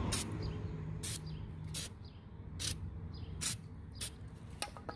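An aerosol can of brake cleaner sprayed in about seven short hissing bursts, a little under a second apart, into the differential's axle-seal bore to clean it before a new seal goes in.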